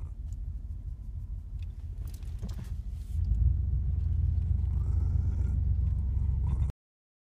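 Pickup truck running, heard from inside the cab as a steady low rumble that grows louder about three seconds in as the truck pulls away, then stops abruptly near the end.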